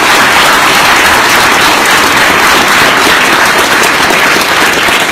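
Audience applauding loudly and steadily.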